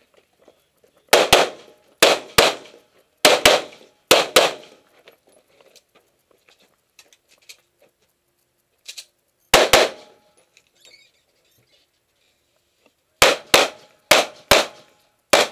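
Pistol shots fired in quick double-taps from a USPSA Open-division pistol. Four pairs come in fast succession over the first few seconds, then a pause. One pair follows near the middle and more pairs come near the end.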